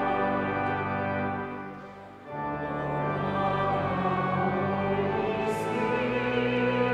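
Choir singing over pipe organ accompaniment in a church, with sustained chords. The music thins out and dips briefly about two seconds in, as between phrases, then comes back in.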